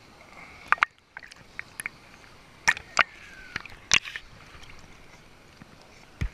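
Pool water lapping and splashing against a GoPro's waterproof housing held at the surface, with several sharp knocks and splashes as the camera bobs and dips in and out of the water.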